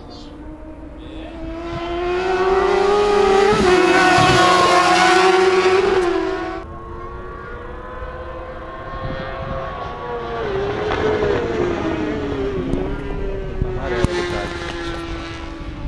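Motorcycle engines running at high revs on the race track: one swells to a loud pass and breaks off suddenly about six and a half seconds in, then another engine runs steadily with its pitch dipping twice, with a sharp click near the end.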